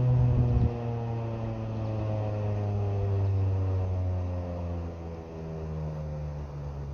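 Federal Signal 2001-SRN electromechanical rotating siren winding down, its tone sliding slowly lower as the rotor coasts toward a stop. The level drops suddenly about a second in, then swells once and fades.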